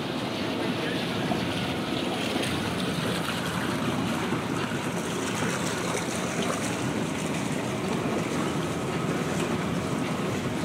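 Steady outdoor rushing noise of wind and water, with no distinct events.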